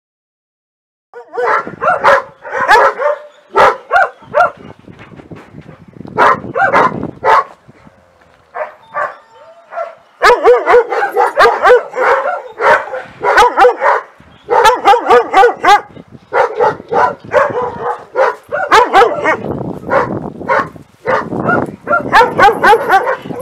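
Doberman Pinscher guard dog barking in repeated loud volleys at the fence of its kennel yard: territorial guarding. The barking starts about a second in, eases briefly around the middle, then goes on in rapid, almost unbroken bursts.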